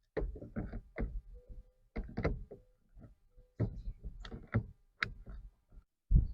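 Irregular knocks, clunks and rattles from a pickup's steering wheel being handled and pushed back onto its steering column, with two brief faint squeaks.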